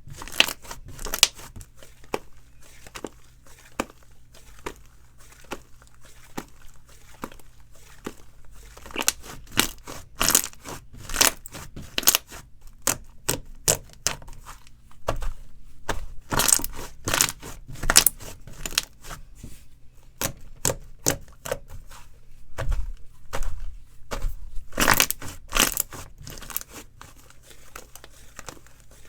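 Slime being squeezed, poked and stretched by hand, making irregular wet clicks and pops. The clicks come in busier clusters at times, over a faint steady low hum.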